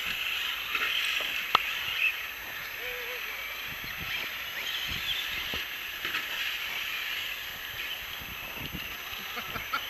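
Brushless electric 1:8 RC buggies running on a dirt track, heard at a distance as a steady noise, with a sharp click about a second and a half in.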